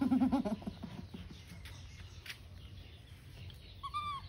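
A short, high squeak from a baby monkey, rising then held, near the end. Before it, a brief wavering voice at the very start and faint scattered clicks.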